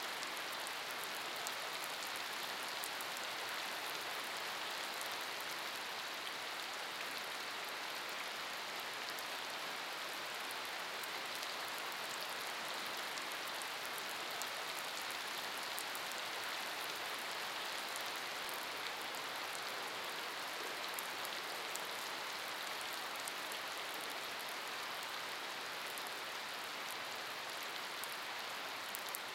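Steady rain falling on puddled pavement: an even hiss of water with a fine patter of individual drops splashing, holding at the same strength throughout.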